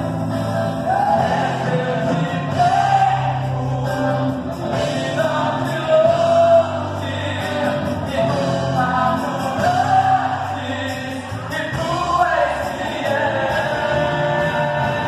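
Live gospel worship music: a voice singing a melody over a church band with drums and cymbals, played loud through PA loudspeakers.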